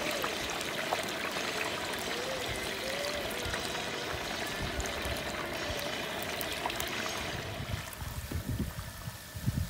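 Large pot of deep-frying oil bubbling and sizzling hard as chicken fries, a steady rushing hiss. About eight seconds in it drops to quieter bubbling with a few low thumps.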